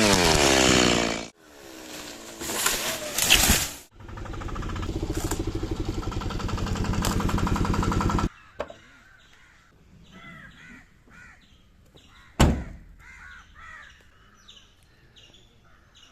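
Stihl two-stroke chainsaw running, at steady speed from about four seconds in until it cuts off abruptly about halfway through. Then birds calling, crows among them, with one sharp knock about four seconds later.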